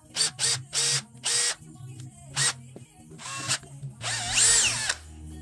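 Bosch GSR 12V-35 cordless drill motor whirring in short bursts on the trigger, then a longer run about four seconds in that speeds up and slows down again.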